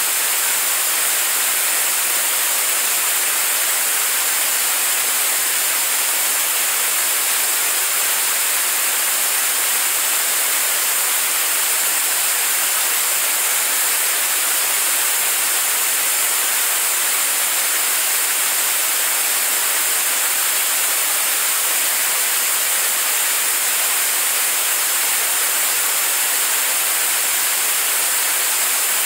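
Staged-combustion liquid rocket engine firing at steady state on a test stand: its exhaust makes a steady, hissing rush of noise, heaviest in the high range.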